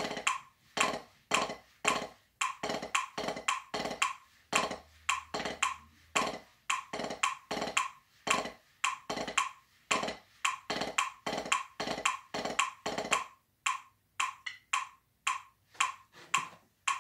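Drumsticks striking a drum practice pad in a steady rhythm, about three strokes a second, in phrases broken by short pauses.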